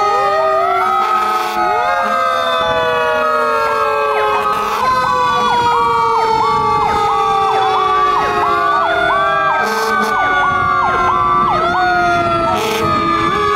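Several fire truck sirens sounding together: long wails that slowly fall in pitch, overlaid by a faster siren rising and falling about twice a second in the middle.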